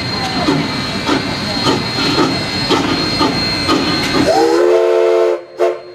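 Steam locomotive running with steam hissing and clattering, then its whistle blows one blast of several tones at once, about a second long, followed by a short toot near the end.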